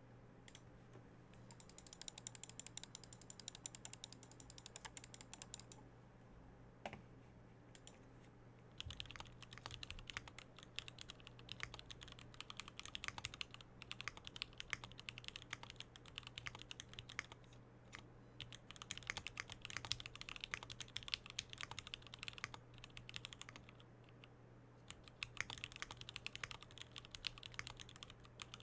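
Swagkeys Eave65 mechanical keyboard with Gateron Milky Yellow linear switches, JTK keycaps and an aluminium plate, typed on in fast runs of keystrokes. Four stretches of typing are separated by brief pauses.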